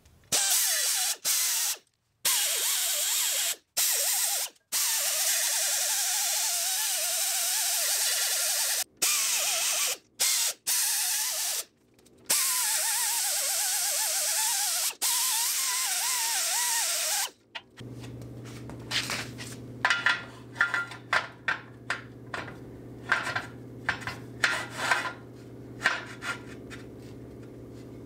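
Compressed-air blow gun on a red air hose hissing in long blasts that start and stop abruptly, with a faint wavering whistle. Then a run of sharp metallic taps and clicks over a steady low hum.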